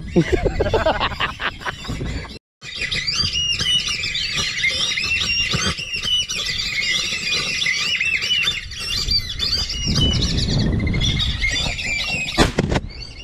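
A flock of whistling ducks calling, many high whistles overlapping in a dense, continuous chorus. A sharp bang comes near the end.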